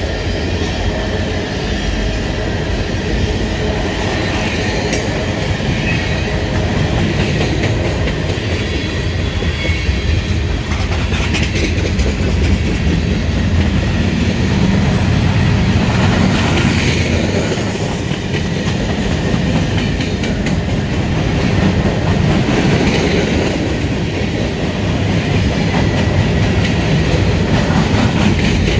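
Long CN freight train of covered hopper cars rolling past close by: a steady rumble with the wheels clicking over the rail joints.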